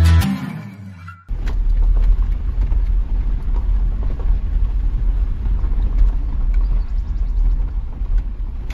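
Steady low rumble of a car driving, heard from inside the cabin, starting suddenly just over a second in after the tail of guitar music fades out.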